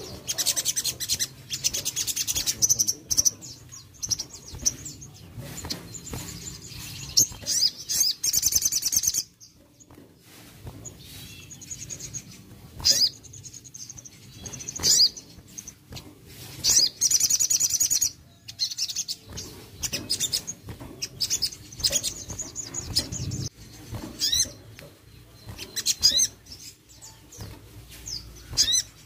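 Little spiderhunter (sogon) calling: bursts of rapid, high-pitched chirping trills a few seconds long, with single quick chirps scattered between them.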